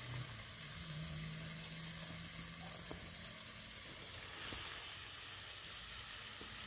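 Slices of venison heart frying in oil in a cast iron skillet, a steady sizzle.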